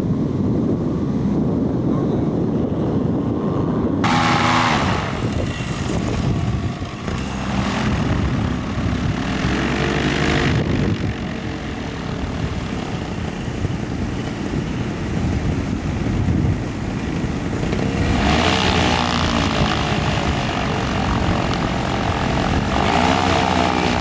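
Paramotor trike's engine and propeller running, its pitch rising and falling several times as it taxis and passes by. For the first few seconds there is only wind noise on the microphone.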